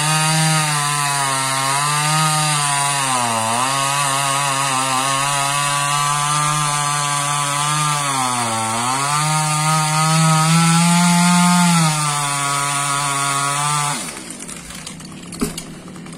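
Stihl MS194 TC top-handle two-stroke chainsaw running at high revs, cutting through a tree trunk, its pitch sagging briefly twice. Near the end the saw's sound drops away suddenly, followed by a single sharp knock.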